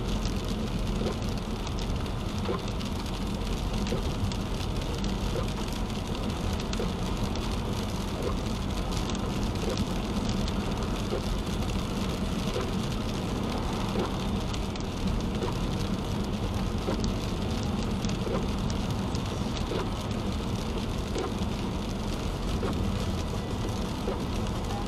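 Steady road noise heard from inside a car at highway speed on wet pavement: tyres hissing on the wet road, with rain falling on the windshield.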